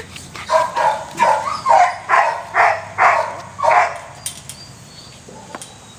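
A dog barking in a quick series of about eight short barks, stopping about four seconds in.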